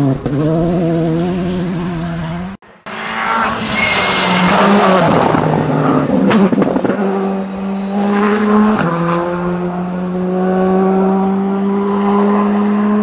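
Rally car engines at full effort: first an engine revving up and down hard, then after a cut another rally car's tyres hiss and squeal briefly while its engine pulls steadily, climbing in pitch with one gear change about nine seconds in.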